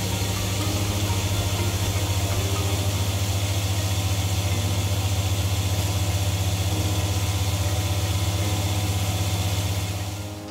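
Hinari Genie personal blender motor running steadily as it purées a thick roasted red pepper and walnut dip, with the cup held pressed down to keep it running. The motor cuts off shortly before the end.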